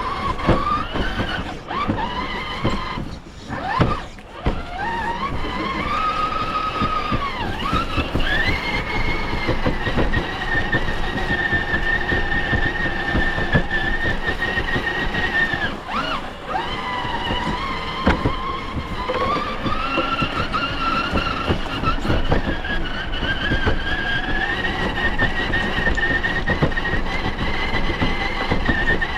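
RC rock crawler's electric motor and geared drivetrain whining, the pitch rising and falling with the throttle and held steady for several seconds at a time, with scattered knocks.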